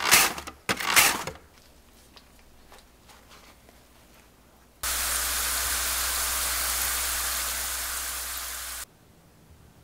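Lotus root slices sizzling in hot frying oil, a steady loud hiss lasting about four seconds that cuts off suddenly. Before it, two quick strokes of a mandoline slicer cutting through lotus root, then faint handling sounds as the slices are patted dry with paper towel.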